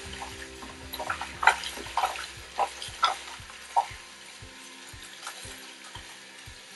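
Tap water running onto pieces of boiled pork skin in a plastic colander over a stainless-steel sink, with the pieces knocking and squelching as hands rub and turn them, the clatter sharpest in the first few seconds. Background music with a soft steady beat runs underneath.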